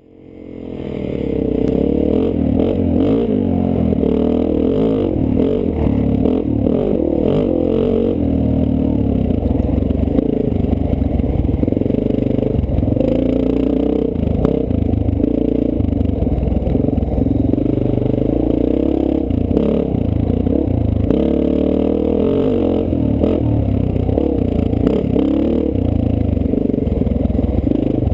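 Dirt bike engine running close by, its pitch rising and falling with the throttle, with clatter from the bike over rough ground. The sound fades in over the first second or two.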